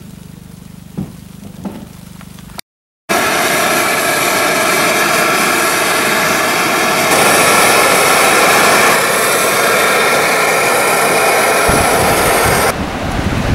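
A short quiet stretch inside a tent with a few light taps, then, after a sudden cut, strong wind blasting the microphone in a snow squall: a loud steady roar that changes abruptly to gusts near the end.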